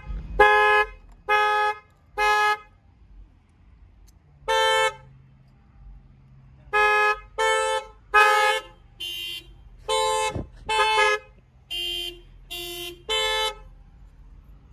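Car horn sounding in short toots, about fourteen in irregular groups of one to four with pauses between; a few of the toots are lower in pitch than the rest.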